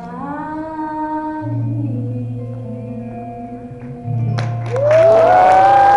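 The end of a live song: voices singing over an acoustic guitar with low held notes. About four seconds in the audience breaks into loud cheering with high whoops, the loudest sound here.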